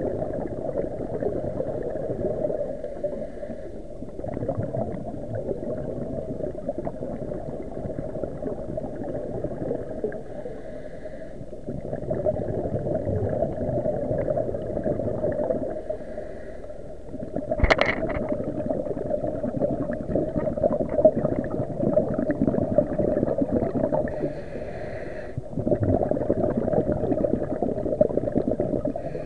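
Muffled underwater sound through a waterproof camera housing: a low rumbling and gurgling of water and bubbles that swells and fades every few seconds, with a single sharp click about eighteen seconds in.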